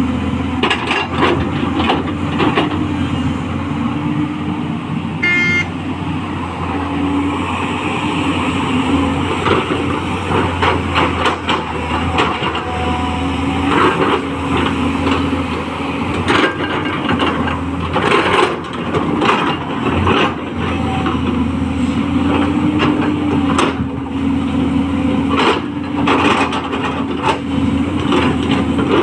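210LC crawler excavator's diesel engine running steadily, its pitch shifting a little as the hydraulics take load, with scattered knocks and clanks throughout and a brief high-pitched tone about five seconds in.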